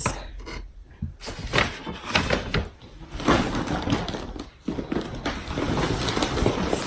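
Rummaging through gifts and their packaging: irregular rustling with scattered light knocks and clicks.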